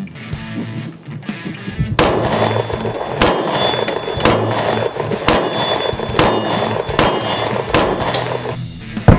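Glock 22 pistol firing .40 S&W incendiary rounds at a steel plate: a string of sharp shots about one a second, starting about two seconds in, a few followed by a brief metallic ring from the plate. Guitar music plays underneath.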